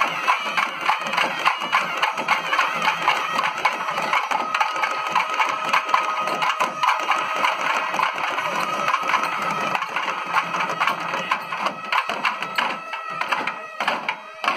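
Festival drum band: barrel drums beaten in a fast, dense rhythm, with a reed pipe holding a high note over them for several seconds midway. The drumming thins out near the end.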